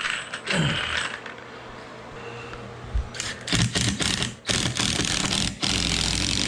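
Handheld power tool driving a fastener into wood with a rapid rattling hammer action, starting about three seconds in after a few handling clicks, stopping briefly twice, then running steadily.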